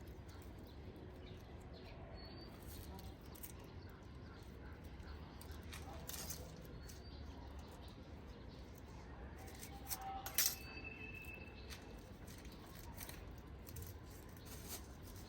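Quiet hand-work sounds of onions being cut and handled for planting: scattered light clicks and snips. There is a faint high chirp about two seconds in, and a sharper click with a short tone about ten seconds in.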